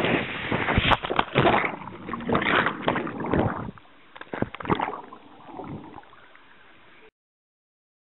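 Water rushing down a water slide, then a rider splashing into the pool, with several sharp splashes in the first few seconds. After that the sound drops to muffled underwater gurgling as the camera goes under, fading until it cuts off just after seven seconds.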